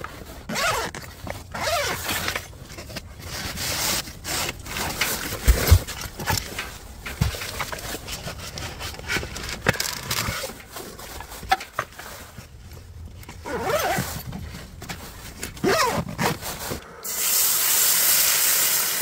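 Nylon gear bags rustling and rubbing, with scrapes and knocks, as gear and a wooden plate are pulled out while unpacking. Near the end comes a sudden, steady, loud sizzle as liquid is poured into a hot cast iron skillet, sending up steam.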